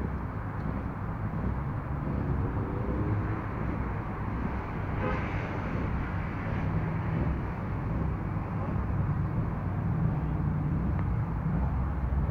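Car engine running at low speed while creeping forward in a queue, a steady low drone, with a brief brighter burst of sound about five seconds in.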